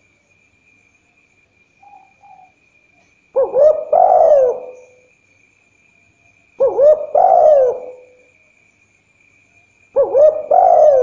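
Spotted dove cooing: three phrases of several bending coo notes, the first about three seconds in, repeating roughly every three seconds, the last running on past the end. Two faint short notes come before the first phrase.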